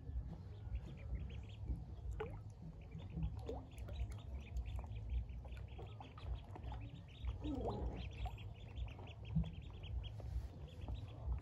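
A crowd of ducklings peeping constantly, many short high peeps overlapping one another.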